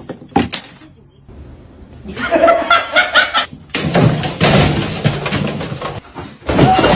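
People laughing loudly from about two seconds in, after a few short knocks at the start.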